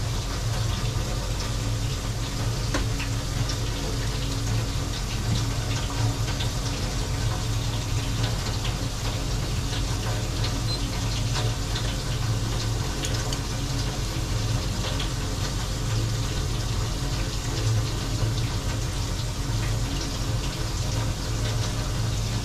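Water at a rolling boil in a large enamel stockpot, a steady bubbling full of small pops, with a steady low hum underneath; an octopus is being blanched in it.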